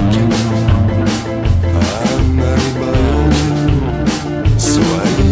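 Instrumental rock music with drum kit, bass and guitar and a steady beat, starting abruptly at the very beginning.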